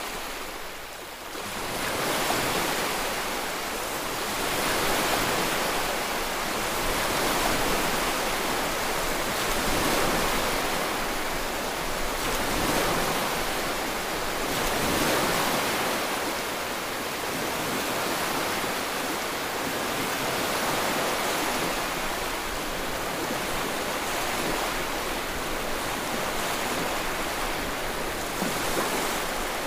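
A steady rushing noise like ocean surf, swelling and easing every two to three seconds.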